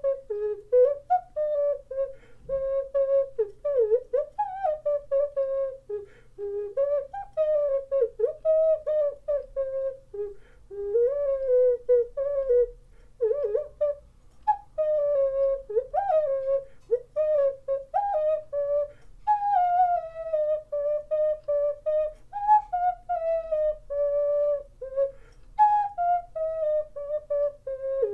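Ceramic ocarina played solo: a breathy, flute-like melody in phrases of short notes with slides and bends, mostly between about 400 and 900 Hz.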